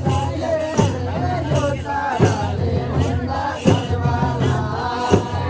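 Kaura folk song: voices singing over a steady drum beat, with a strong stroke about every second and a half.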